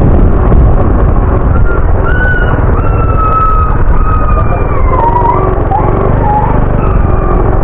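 Steady engine and wind rumble from a moving vehicle on the road. From about two seconds in, a thin wavering tone holds and glides between a few pitches, like a whistled tune, dipping lower near the end.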